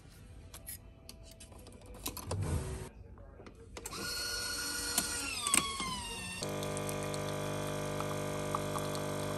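Nespresso capsule coffee machine brewing: light clicks of the capsule being loaded, then about four seconds in the machine starts with a whine that slides down in pitch. Near the middle this gives way to a steady hum as the coffee pours into the cup.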